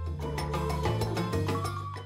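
Background music with percussion over a bass line.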